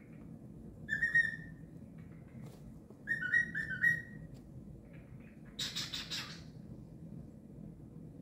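Pet cockatiel whistling: one whistled note about a second in, then a quick run of short whistled notes about three seconds in. A harsher, raspy call follows near the middle.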